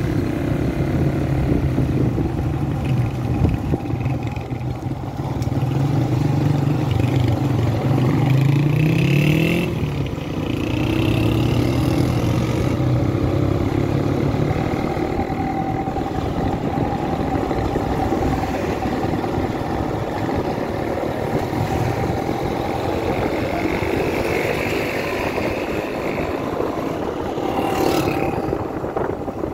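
Motorcycle engine running under way, with wind and road noise; its pitch climbs as it accelerates about eight seconds in, drops at a gear change, then holds steady at cruising speed. A sharp knock comes near the end.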